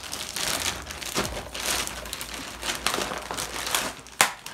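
Plastic courier mailer bag crinkling and rustling in irregular bursts as it is torn open and its contents are pulled out, ending with a sharp tap.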